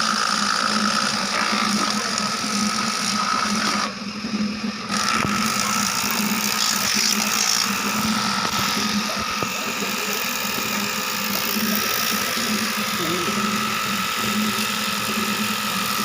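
A motor-driven machine running steadily with a low hum and a higher whine over a rushing noise, cutting out briefly about four seconds in and then running on.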